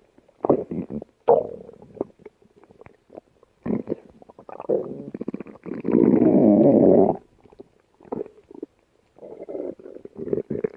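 A yellow Labrador's stomach and gut rumbling and gurgling in irregular bursts, with one long, loud gurgle about halfway through.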